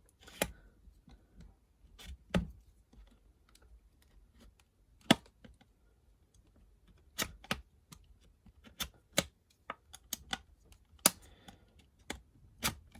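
Irregular sharp clicks and light knocks, about a dozen spread unevenly, from handling a boxed mortice lock and a lock-picking tool.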